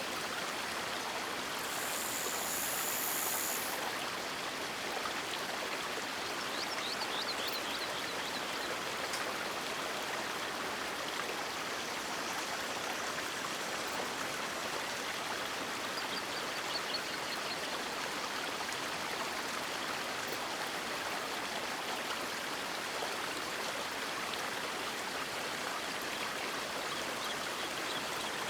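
River water rushing steadily, an even hiss of flowing water, with a brief high-pitched hiss about two seconds in and a few faint high chirps later.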